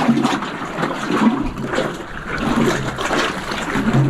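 Small waves sloshing and gurgling in the hollows under a rocky shoreline ledge, swelling and falling irregularly.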